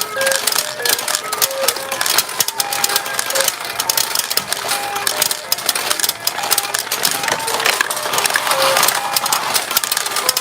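Retro pachinko machine in play: a dense, rapid clatter of steel balls, with short electronic beeping notes from the machine over it.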